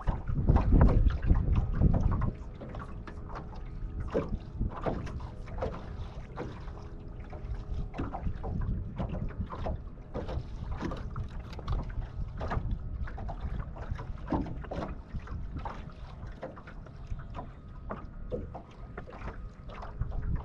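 Wind buffeting the microphone, heaviest in the first two seconds, over small waves lapping and slapping irregularly against a boat's hull.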